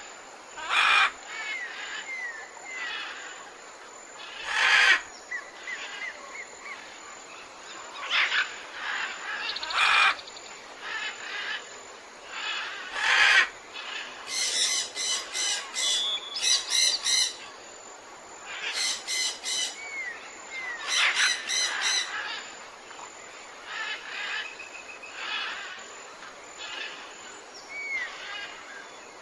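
Several wild birds calling against a faint steady background. There are loud harsh calls every few seconds, short upslurred whistles, and two bursts of rapid repeated chattering notes in the middle.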